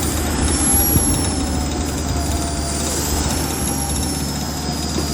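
High-pitched whine of a radio-controlled model's high-speed motor, slowly rising and falling in pitch over a low steady rumble.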